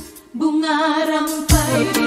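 Malay pop song with a drum beat: the music drops out briefly at the start, a singer's held, wavering note comes in, and the drum beat returns about a second and a half in.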